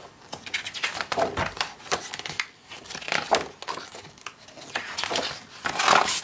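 Paper pages of a large hardcover book being turned, rustling and swishing several times as hands sweep over them.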